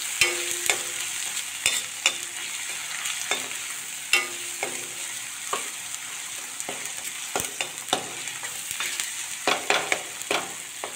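Spiced onion-tomato masala sizzling in mustard oil in an iron kadhai as it is roasted. A steel spoon stirs it, scraping and clinking against the pan at irregular moments, some clinks ringing briefly.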